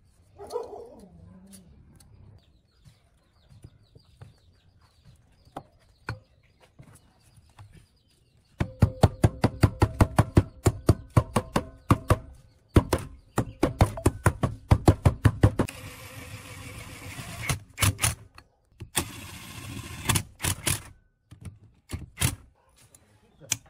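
Power impact driver running in bursts as it tightens the cylinder head bolts of a small four-stroke engine: rapid hammering blows over a steady motor whine, in two long runs and several shorter ones, with loose metal clicks between them.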